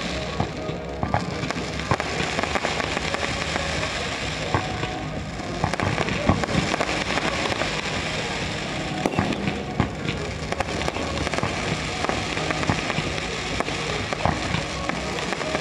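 Aerial fireworks display: a continuous barrage of shells bursting and crackling, with many rapid sharp pops and bangs throughout.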